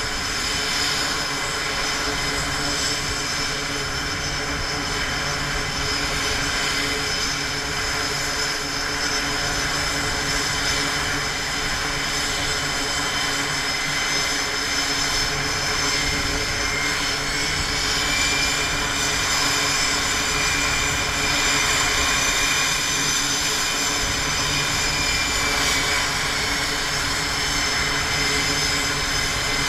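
Jet engines of F/A-18 Super Hornets running on a carrier flight deck as one taxis toward the catapult: a steady, loud rushing noise with several high whining tones over it. One whine rises a little past the middle and drops back near the end.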